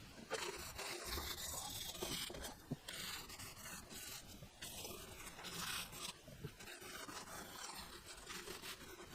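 Irregular scraping and rubbing strokes on the wooden bench top, done by hand.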